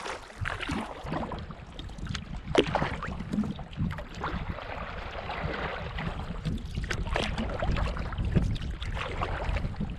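Water splashing and lapping around a sea kayak as it is paddled, with irregular splashes. Wind rumbles on the microphone throughout.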